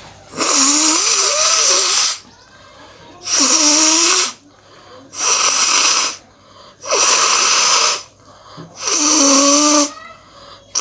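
A person blowing their nose forcefully five times in a row. Each blow lasts about a second and carries a wavering nasal honk through the rush of air, with short pauses between blows and another starting right at the end.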